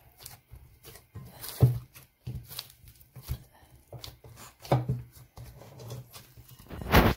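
Hands kneading and pressing a soft flour-and-semolina dough in a glass bowl: soft squishing strokes and irregular thumps, the loudest about one and a half seconds in, near five seconds and at the very end.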